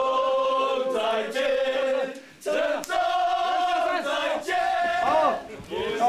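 A group of people singing together, holding long notes, with two short breaks between phrases.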